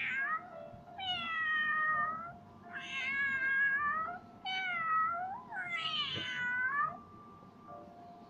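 Domestic cat meowing about five times, each drawn-out meow falling in pitch, played back through a phone's small speaker.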